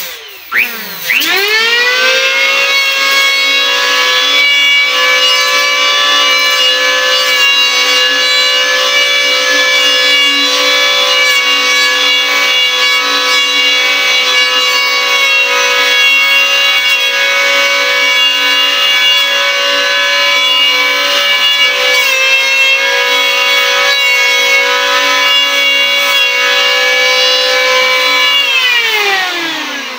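Powerhouse 700-watt electric hand planer spinning up with a rising whine, then running at a steady high pitch as it is pushed along a wooden board, with a brief dip in pitch a little after twenty seconds. Near the end it is switched off and winds down with a falling whine.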